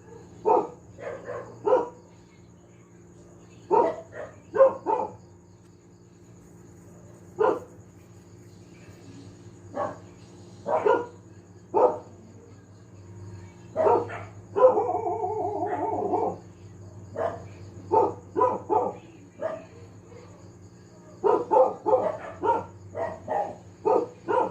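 A dog barking repeatedly in short bursts of two to four sharp barks, with one longer drawn-out call about halfway through.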